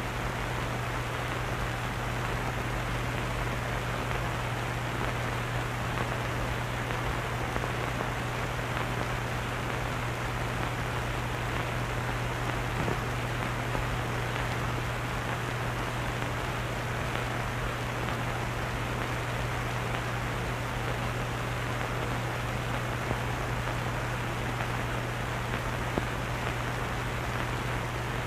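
Steady hiss with a low hum underneath: the background noise of an old film soundtrack.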